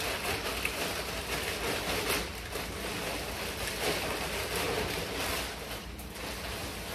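Plastic mailer bag rustling and crinkling as it is handled and rummaged through, with many small crackles.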